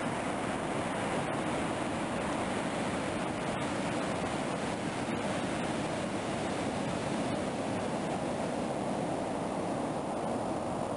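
Ocean surf washing steadily onto a sandy beach, a continuous rushing noise with no single wave standing out.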